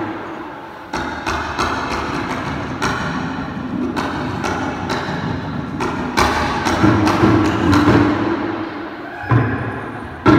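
Balinese gamelan ensemble playing: struck bronze metallophones ringing over drum strokes in a quick rhythm. It dies down at the start, picks up again about a second in, swells louder past the middle, and breaks off briefly before a sharp, loud accented stroke near the end.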